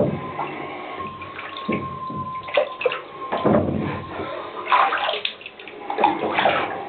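Water gurgling and splashing in irregular bursts, with a faint steady whine for the first two seconds or so.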